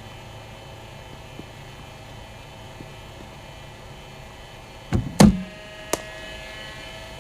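A cricket ball delivered from a bowling machine is struck with a cricket bat about five seconds in: a dull knock, then the loud crack of bat on ball with a short ringing, then a sharper knock under a second later. A steady hum runs underneath.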